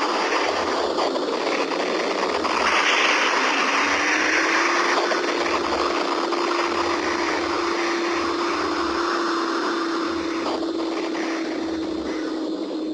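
Anime ki-blast sound effect of Vegeta's Big Bang Attack: a sustained noisy roar with a steady hum that rises slightly about four seconds in, over a low throb pulsing about once a second.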